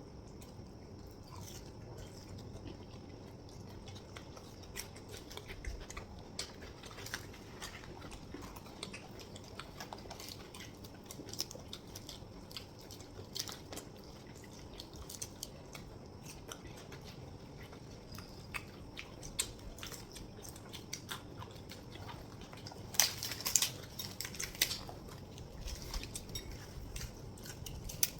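Close-up eating sounds of chhole bhature being chewed: scattered small mouth clicks and smacks, with a louder run of clicks near the end.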